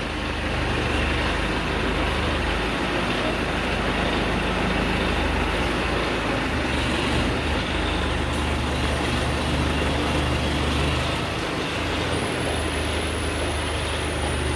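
ACE 12XW hydra crane's diesel engine running steadily while its boom swings. A faint thin high whistle joins about twelve seconds in.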